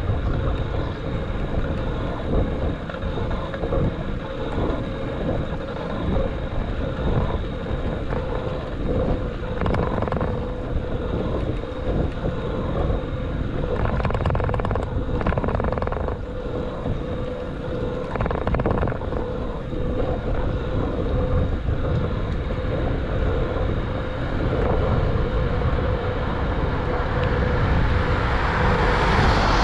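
Wind rush and road rumble picked up by a handlebar-mounted action camera on a moving bicycle, steady throughout, with a louder rush swelling up near the end.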